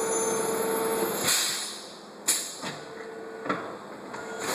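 Plastic bottle making machine running with a steady hum, then a short hiss of released compressed air about a second in, followed by two sharp mechanical clicks.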